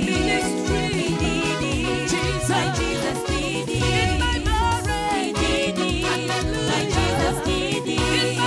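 Gospel song with a singing voice over a moving bass line and drums keeping a steady beat.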